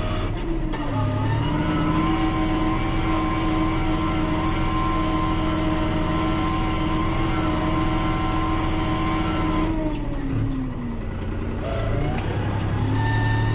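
SAME Explorer 50 tractor's diesel engine running under load, heard from inside the cab. The revs dip briefly about half a second in with a gear change, hold steady, then fall away around ten seconds in and pick up again about two seconds later.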